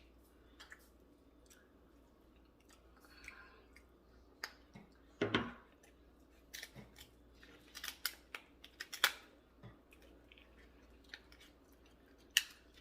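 Scattered sharp clicks and cracks of king crab shells being broken open and picked at during eating, with chewing; the loudest crack comes about five seconds in and another about nine seconds in.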